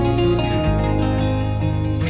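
Background music: soft instrumental music with plucked guitar over a steady bass line.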